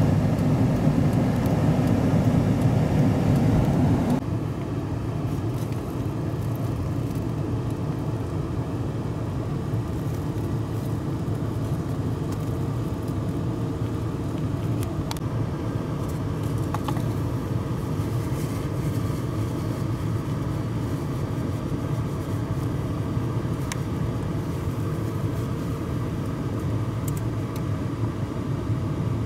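Twin-engine jet airliner's engines rumbling steadily as it climbs away after takeoff. The rumble is louder for the first few seconds, then drops to an even level.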